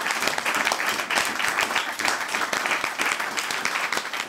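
Crowd applause: many hands clapping steadily.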